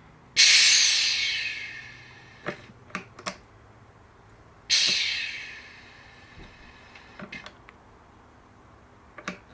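Restored Leyland Leopard pneumatic gear selector on an air test at about 65–70 psi: two sharp bursts of compressed air hissing out, each fading over a second or two, about half a second in and near five seconds in, with a few short clicks between them. The hiss is air exhausting as the selector disengages, made louder by a valve left open on the manifold.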